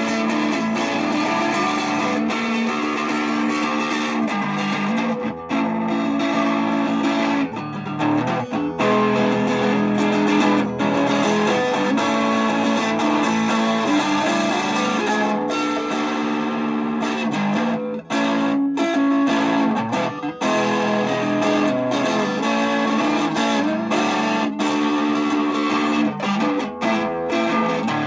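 Guitar music, led by an electric guitar playing a run of held notes, with a few brief breaks.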